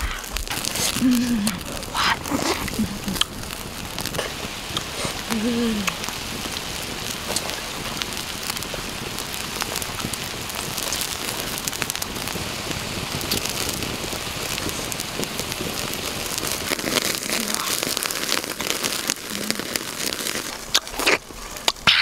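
Small octopuses sizzling and crackling on a hot rock over a wood fire, a steady hiss.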